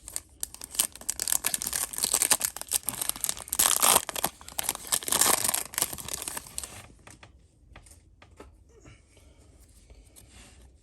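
A foil Yu-Gi-Oh! booster pack wrapper being torn open and crinkled for about seven seconds, then only faint, scattered clicks and rustles as the cards are handled.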